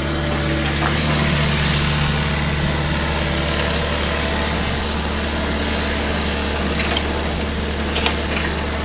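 Heavy excavator's diesel engine running steadily under work, with two short knocks near the end.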